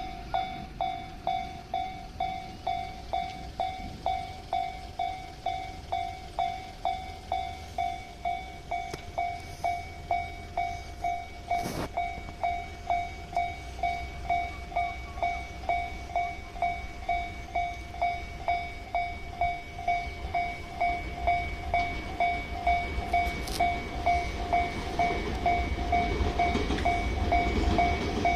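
Japanese level-crossing warning bell ringing with an even clang about twice a second. A Tobu Railway train's running noise builds up over the last few seconds as it approaches the crossing.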